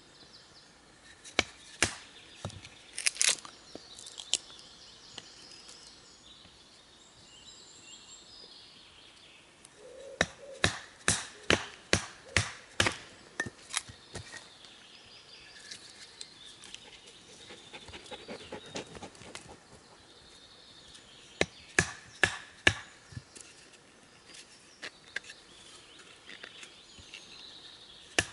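Wooden baton knocking on the spine of a bushcraft knife, driving the blade down through a piece of wood to split it. The knocks are sharp and come in bursts: a few at first, a quick run of about three a second in the middle, and another short run later.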